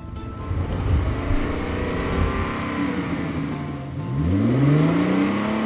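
A vehicle engine sound effect: a rough engine rumble, then about four seconds in the engine revs up with a steadily rising pitch.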